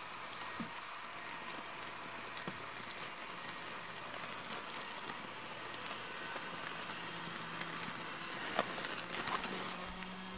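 Small electric blower fan of a Gemmy Airblown inflatable running steadily, air rushing as the nylon figure fills and stands up, with scattered light crackles of the fabric.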